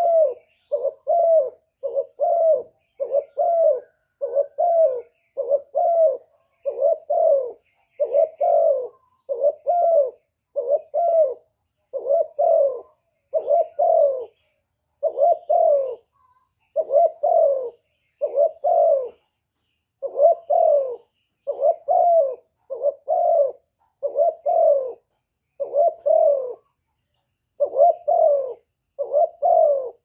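Spotted dove cooing, a long series of short coos at about one a second, broken by a few brief pauses.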